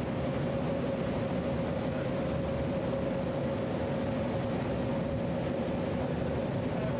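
The fireboat Firefighter's diesel-electric machinery running steadily: a constant drone with a steady hum.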